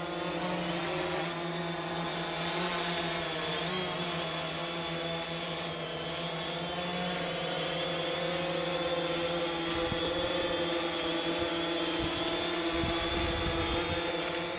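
Diesel locomotive engine running with a steady drone as the train moves away, with a steady high-pitched whine above it.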